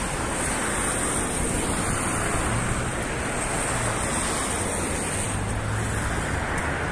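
Steady city traffic noise from a wide multi-lane street, an even rush of passing cars with a faint low engine hum in the middle.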